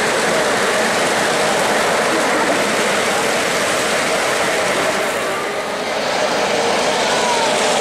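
O-gauge three-rail model freight train running past on the layout track, its wheels rumbling steadily over the rails.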